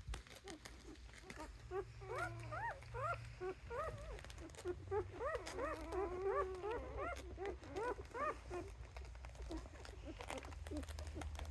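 Newborn Rough Collie puppies, five days old, squeaking and whining in short cries that rise and fall in pitch, several pups overlapping in the middle before thinning out near the end.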